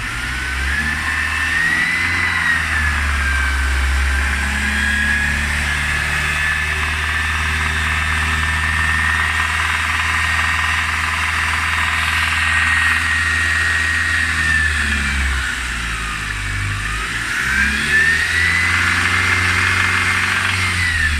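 Mercedes-Benz C250 engine running and revved up and down twice, with a high whine that rises and falls with the engine speed: the strange engine noise being shown.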